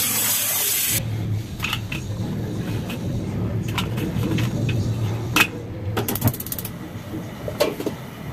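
Tap water running into a bowl for about a second. Then come scattered clinks and knocks of a metal plate being set into a steel wok and a steamer lid being handled, with a quick run of ticks about six seconds in, over a low steady hum.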